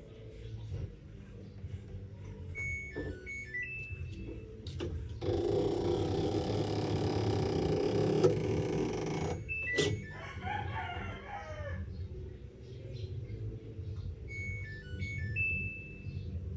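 A rooster crows once, about ten seconds in, over a steady low hum, with short high bird chirps before and after. A loud even hiss runs for about four seconds just before the crow.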